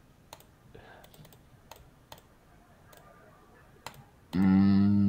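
Sparse, irregular clicks at a computer as the replay is stepped on, a dozen or so over four seconds. About four seconds in, the loudest sound begins: a man's voice holding one long, steady hesitation sound at a fixed low pitch.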